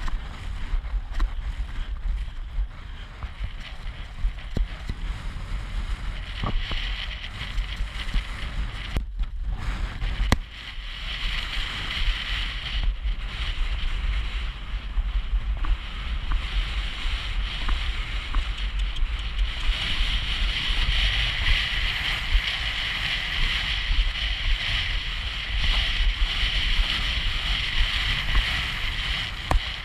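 Wind buffeting the microphone of a camera carried on a galloping horse, a steady low rumble with a hiss that grows louder about ten seconds in and again about twenty seconds in, with the knocks of hoofbeats under it.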